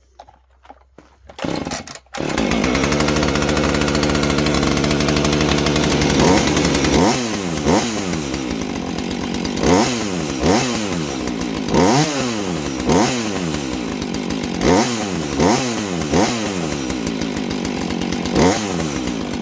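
Husqvarna 450 Rancher two-stroke chainsaw pull-started, catching about two seconds in after a short pull or two, running at a steady fast idle. It is then revved up and down repeatedly, about once a second. The saw runs again after a new fuel filter, air filter and primer bulb have been fitted.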